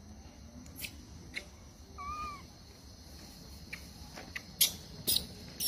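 A macaque gives one short, wavering squeaky call about two seconds in. Near the end come three sharp clicks, the loudest sound here.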